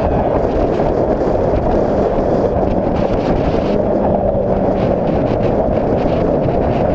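Heavy wind rushing over the microphone of a motorcycle riding at road speed in the rain, with the steady drone of a Yamaha XJ6's inline-four engine underneath.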